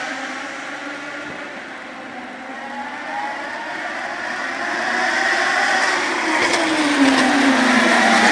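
Open-wheel race car engines: one car's engine note fades away, then the sound grows again as another car approaches and passes, its pitch dropping as it goes by near the end.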